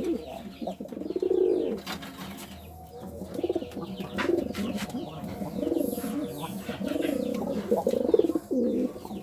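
Domestic pigeon courtship cooing: a long coo about a second in, then a run of shorter coos that each rise and fall in pitch, with a few sharp clicks between them.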